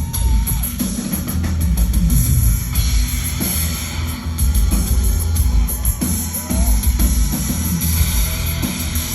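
Industrial band playing live through a concert PA: a heavy drum beat over loud, dense bass, with short sliding synth or vocal lines above.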